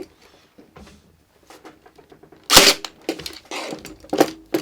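Ryobi 18V ONE+ cordless compression-drive crown stapler firing staples into oak: two sharp snaps, about two and a half seconds in and just after four seconds, with lighter knocks of handling between. On oak the staples are not driving fully home.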